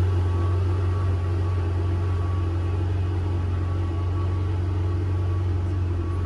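Ferrari 488 GTB's twin-turbo V8 idling steadily with a constant low hum.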